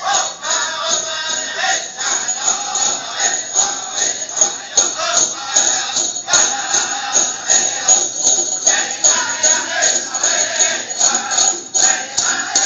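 Powwow song for a Prairie Chicken dance: a steady, even drumbeat under high group singing, with bells jingling.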